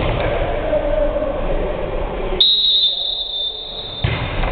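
A referee's whistle blown in one long, steady, shrill blast of about a second and a half, starting a little past halfway through, over the background noise of a volleyball game in a gym.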